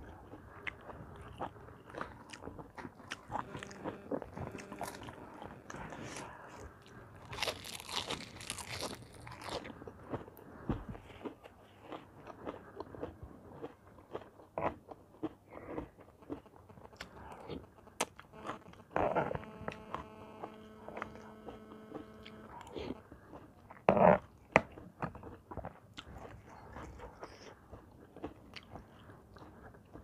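Close-up chewing and crunching of a mixed seafood tam salad with squid, with many small wet mouth clicks. A hissy burst comes about eight seconds in, a steady pitched sound lasts about three seconds past the middle, and a louder short bite comes soon after.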